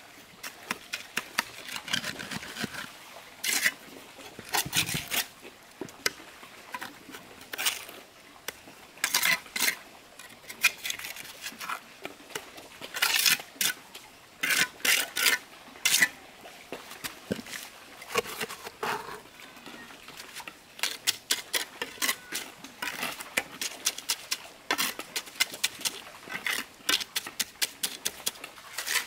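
Steel bricklaying trowel working mortar on hollow concrete blocks: irregular scrapes and sharp taps and clicks as mortar is spread and the blocks are knocked into place.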